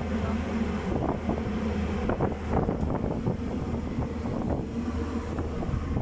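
Wind buffeting the microphone, rough and gusty, over a steady low hum.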